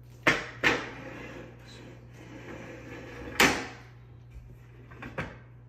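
A long aluminium level being set down and moved on a laminate countertop: a handful of sharp knocks, two at the start, the loudest about three and a half seconds in, and a quick pair near the end, with a soft scraping in between.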